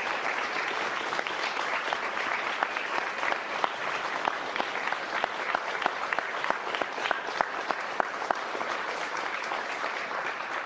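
A crowd applauding: many hands clapping in a dense, steady patter.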